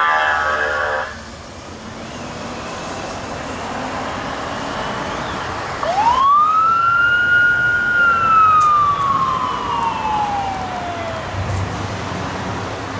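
Police motorcycle's siren sounding one slow wail: it rises sharply about halfway through, holds high, then falls slowly over about five seconds, over steady traffic noise. A horn blast cuts off about a second in.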